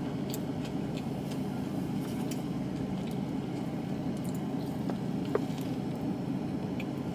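Steady low hum inside a parked car's cabin, with faint chewing and mouth clicks as a sandwich is eaten. A bite is taken near the end.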